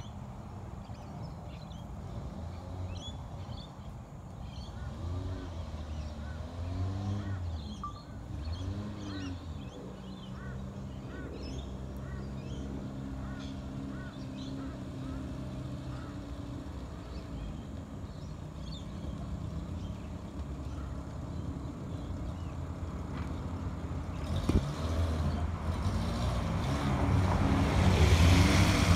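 1939 Austin 8's four-cylinder engine driving on the street, its pitch rising and falling with the revs for the first several seconds, then running steadily, and growing louder as the car approaches, loudest near the end. Birds chirp in the background.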